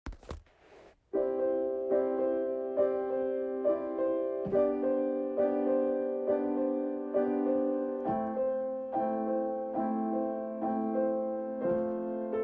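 Background piano music with evenly paced notes, after a short burst of noise at the very start.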